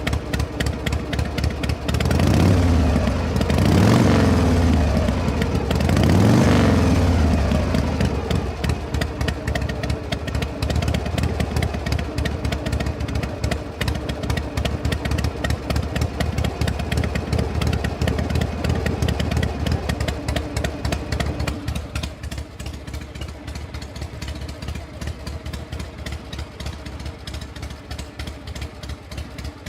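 Vehicle engine idling, revved up and back down twice early on, then settling to a steady idle that drops a little in loudness about two-thirds of the way through.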